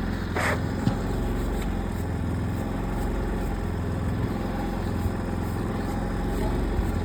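An engine running steadily, a low even hum, with a brief hiss about half a second in.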